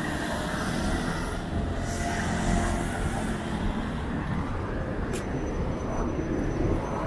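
City street traffic: a steady rumble of passing cars and buses, with one short sharp click about five seconds in.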